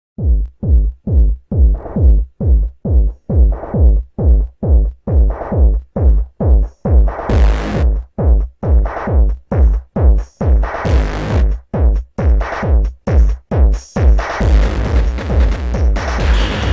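Electronic instrumental music: a pulsing, gated synth-and-kick pattern at a little over two beats a second, with brief noise swells near 7 and 11 seconds in. It opens into a fuller, continuous sound about 14 seconds in.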